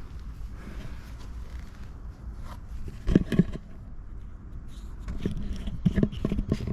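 Handling knocks and scrapes: two sharp knocks about three seconds in and a cluster of further knocks near the end, over a low steady hum.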